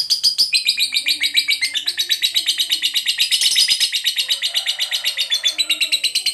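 Lovebird singing a long, unbroken chattering trill (the 'ngekek' kept birds are trained on): high-pitched notes repeated rapidly at about ten a second without a break.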